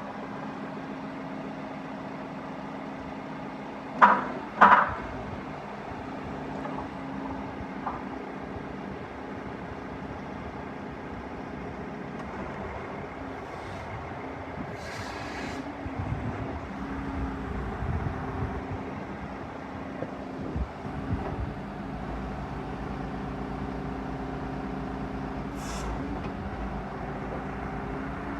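Diesel engine of a Schaeff TW 95 wheeled excavator running steadily. Two loud metallic clanks come about four seconds in, and a brief hiss about halfway through.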